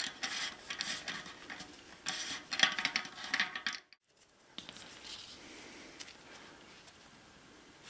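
Threaded ring of a DT Swiss hub being unscrewed by hand from the hub shell: light metallic clicks and clinks for about four seconds, cutting off abruptly, then only a faint hiss.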